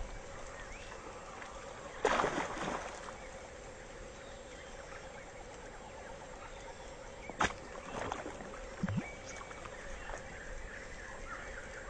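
A splash on the pond surface about two seconds in, then a sharp click and smaller splashes around eight to nine seconds, over a steady hiss of light rain falling on the water.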